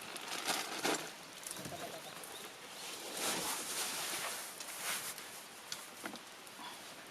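Wood fire crackling with scattered sharp pops, and a rush of noise swelling and fading in the middle.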